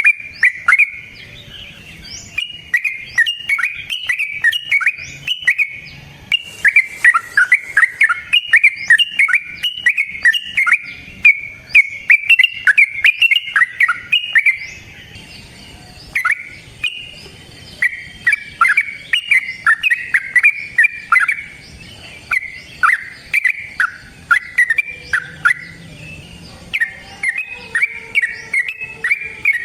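Yellow-vented bulbul singing long, rapid runs of bubbly chattering phrases, pausing briefly about halfway through.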